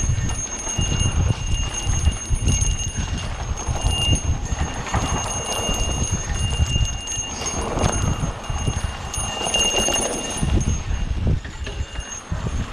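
Mountain bike riding over a dirt trail: tyres rolling on rough ground and the bike rattling and knocking over bumps, with a steady low rumble throughout.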